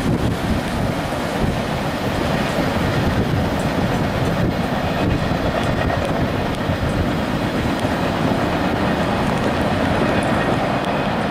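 Hopper cars of a freight train rolling along the track: the steady noise of steel wheels on rails.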